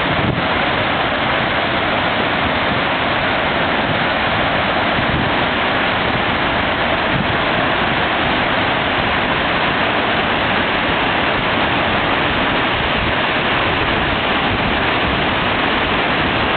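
Glacial meltwater river rushing out from beneath the glacier ice: a loud, steady wash of white water that does not change.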